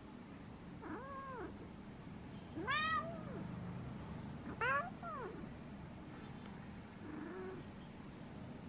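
Domestic cat meowing: three drawn-out meows, each rising then falling in pitch, about two seconds apart, the middle one the loudest, then a faint short one near the end.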